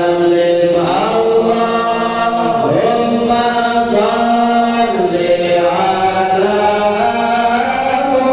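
Islamic devotional chanting: a voice holding long melodic notes that glide from one pitch to the next.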